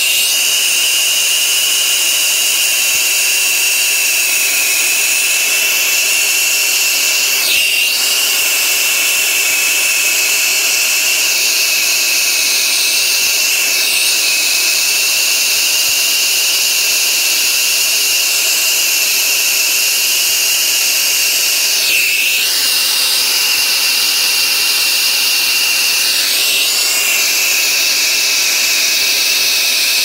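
Brazing torch flame hissing steadily as it heats a copper fitting joint, with a steady high whistle running through the hiss. The sound shifts briefly a few times.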